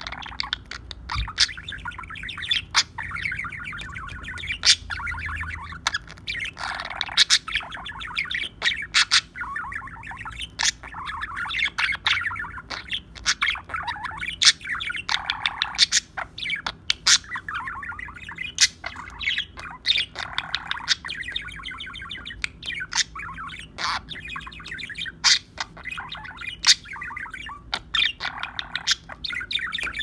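Budgerigar singing its chattering warble song: a continuous run of squeaky warbles broken by many sharp clicks and chirps.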